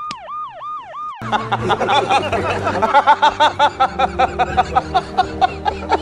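A siren-like wailing sound effect of four quick rising-and-falling whoops, followed by loud, hearty laughter from men in a film clip, a rapid run of 'ha-ha' syllables over a music bed with steady bass notes.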